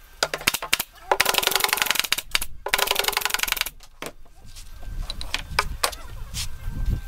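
Pneumatic nail gun firing into the plywood of a subwoofer box: a few single shots, then two fast runs of shots of about a second each. In the second half come scattered knocks with a low rumble as the wooden box is handled.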